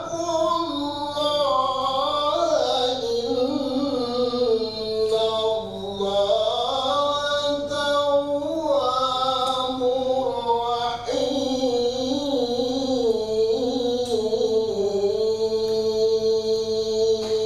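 A man reciting Qur'an verses in the melodic, chanted tajwid style, with long drawn-out notes that waver and glide in pitch. He pauses briefly for breath about six and eleven seconds in, then holds a long steady note near the end.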